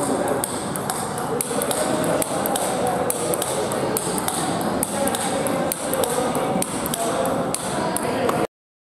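Table tennis balls clicking off bats and bouncing on tables, a quick irregular run of sharp clicks several times a second. The sound cuts off suddenly near the end.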